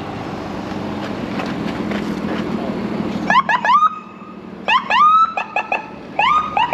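Traffic noise growing louder, then an emergency vehicle's siren giving a series of short rising whoops from about three seconds in.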